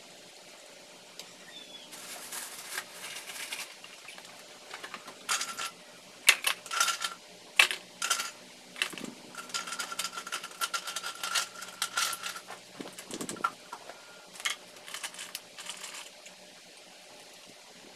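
Irregular clinks, clicks and knocks of coffee-brewing gear being handled and set down on a tabletop, including a glass coffee server, with a high ringing tone for a few seconds in the middle.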